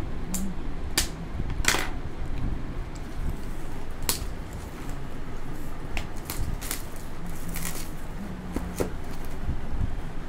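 Clear plastic shrink wrap being torn and peeled off a cardboard smartphone box: irregular sharp crackles and rustles about once a second, with hands knocking against the box.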